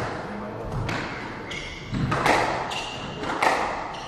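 Squash rally: the ball struck by rackets and hitting the court walls, about four sharp hits roughly a second apart, with short high squeaks between them.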